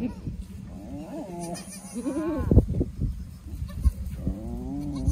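Goat bleating three times in wavering calls, the second, about two seconds in, the loudest, followed by a sharp thump; a steady low hum runs underneath.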